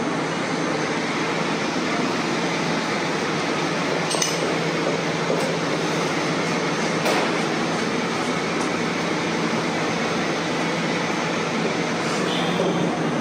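Steady mechanical hum and whir, with a few light metallic clinks, about four in the middle of the stretch.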